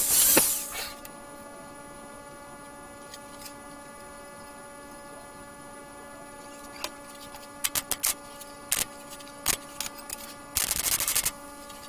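Welding arc crackling on steel brackets in short bursts: one ends about a second in, a few sharp pops come in the middle, and another burst of about a second comes near the end. A steady electrical hum runs between them.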